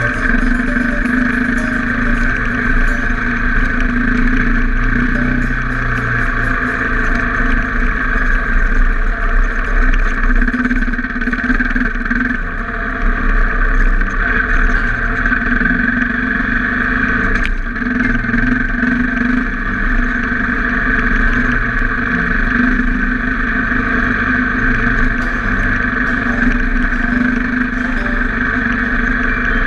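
Enduro motorcycle engine running steadily under load as it climbs a rough dirt mountain track, heard from a camera mounted on the bike.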